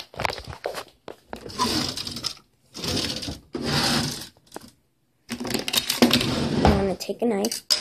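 Handling noise: several bursts of rubbing, rustling and knocking as the camera is moved about and a knife is fetched, with a child's voice starting briefly near the end.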